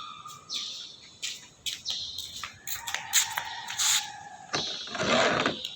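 Metal clinking and tapping, a string of sharp knocks with a brief ringing tone in the middle, then about a second of noisy scraping near the end.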